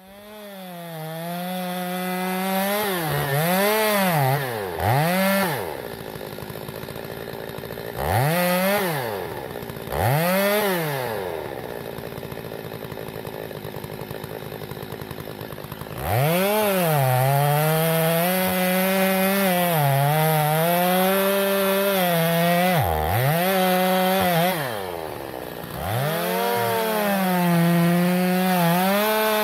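Stihl 023 two-stroke chainsaw cutting into the base of a standing tree. It runs at high revs, is twice revved up and let fall back to idle, idles for a few seconds, then is held at full throttle from about halfway through for a long cut, with two brief drops in revs near the end.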